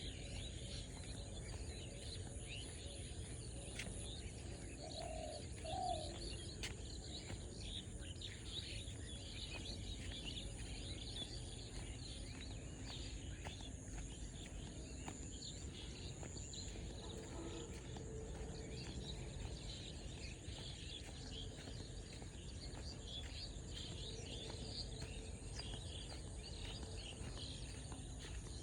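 Many small birds chirping together in a dawn chorus, over a steady low rumble of breeze, with two short lower calls about five seconds in.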